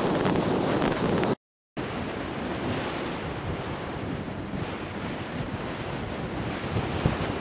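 Strong wind rushing over the microphone, a steady noise. It cuts out to silence for a moment about a second and a half in, then carries on a little quieter.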